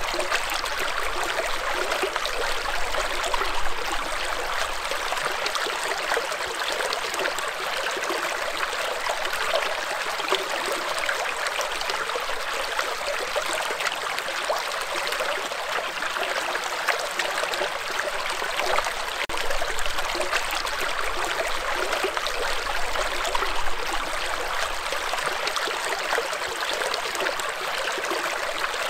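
Shallow stream running over rocks: a steady rush and babble of water with many small splashes and gurgles.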